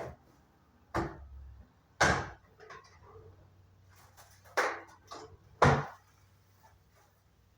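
Household knocks and bangs: five sharp knocks spaced irregularly, the two loudest after the middle, over a faint steady low hum.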